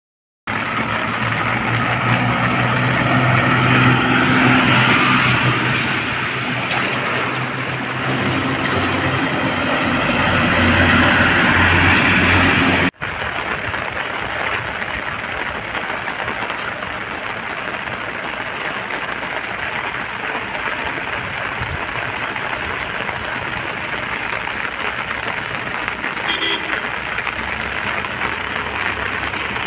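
Steady hiss of heavy rain and moving floodwater. For the first half a heavy truck's engine runs as it drives through the water, growing louder just before a sudden cut about 13 seconds in; after that the rain and water carry on with only a faint engine hum.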